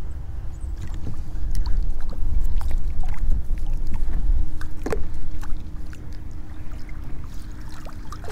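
Kayak sounds on the water: scattered knocks and small splashes over a steady low rumble that is heaviest in the first half.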